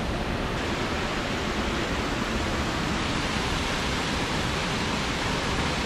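Small waterfall rushing steadily, water pouring over a rock ledge into a foaming pool.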